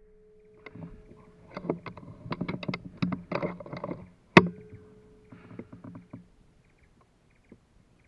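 Air rifle firing a single sharp shot about four seconds in, the loudest sound here, after a couple of seconds of clicks and rustles; a few softer clicks follow the shot.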